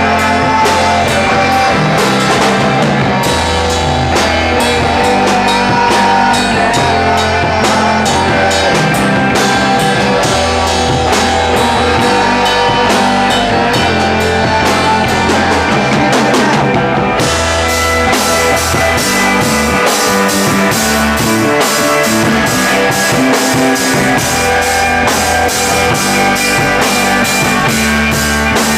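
Rock music with drum kit, bass and electric guitar, playing steadily; the sound fills out brighter about seventeen seconds in.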